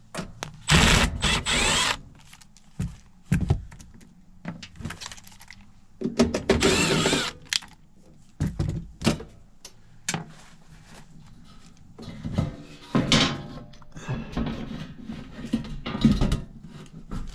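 Cordless drill/driver running screws into the sheet-metal access panels of a package AC unit, in two whining bursts about a second long, with sheet-metal clunks and tool clicks in between.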